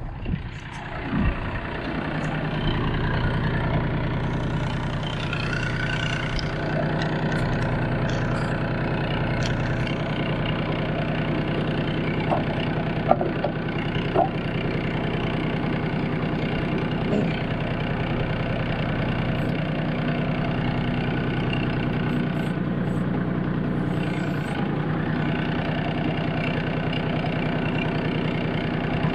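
Kubota L35 tractor's diesel engine running steadily. A few light metallic clicks and knocks are heard about halfway through.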